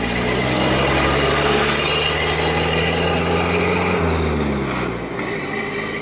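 A motor vehicle's engine passing close by: a steady engine hum that swells over the first second, then drops in pitch and fades a little about four to five seconds in as it goes past.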